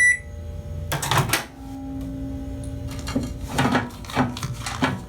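An electronic beep cutting off right at the start, then scattered clicks and knocks of objects being handled, with a low steady hum for a second or two in the middle.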